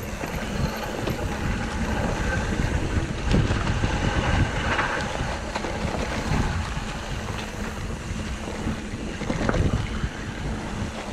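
Wind buffeting the microphone as a mountain bike rides a rough dirt trail, with a steady rumble of tyres and scattered knocks and rattles from the bike.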